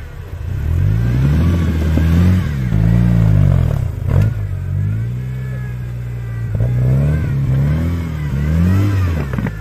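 Off-road racing vehicle's engine revving up and falling back again and again, its pitch climbing and dropping with the throttle. There is one sharp knock about four seconds in.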